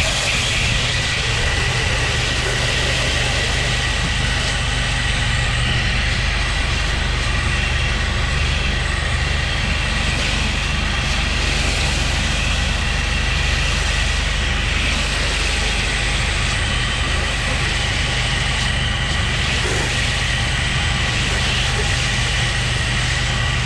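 Pressure washer rig running steadily: an engine hum under a constant hiss of spraying water.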